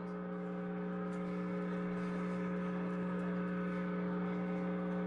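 Steady electric hum from the band's amplifiers left on between songs: a low, even buzz with several overtones.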